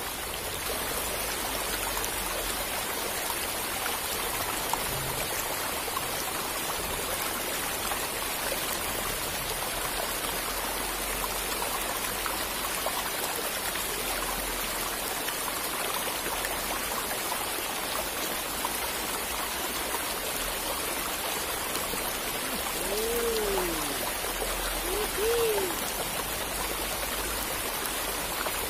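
Steady rushing of flowing river water. Near the end come two short rising-and-falling tones, a second or two apart.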